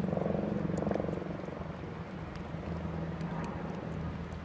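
A steady low mechanical hum, with a brief swell in the first second or so.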